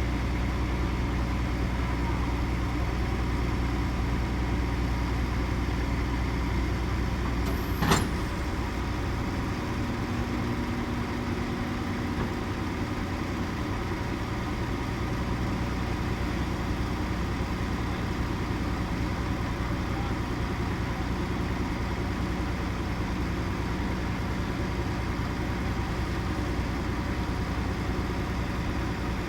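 Diesel farm machinery running steadily at harvest, an engine drone with a single sharp knock about eight seconds in.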